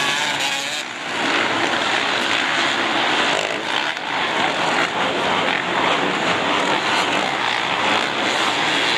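Several 450-class motocross bikes racing around a dirt arenacross track, their engines overlapping into one steady, dense engine noise that dips briefly about a second in.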